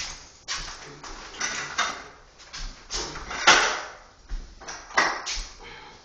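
A series of irregular rubbing or scraping strokes against a surface, about ten in six seconds, each swelling and fading quickly, the loudest about three and a half seconds in.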